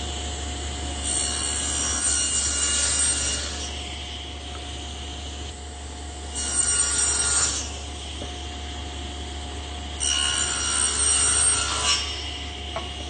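Table saw running steadily, its blade cutting through pine rails three times to clear the waste from the tenons; each pass brings a louder, hissing cut over the saw's steady hum and whine.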